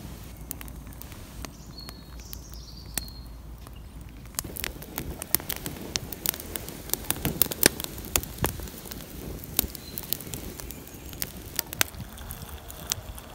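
Wood campfire crackling: a run of sharp pops and clicks that grows busier after about four seconds.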